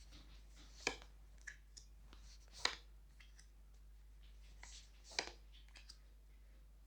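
Tarot cards being handled: three sharp snaps, about a second in, near three seconds and just past five seconds, with fainter ticks and rustles between, over a low steady hum.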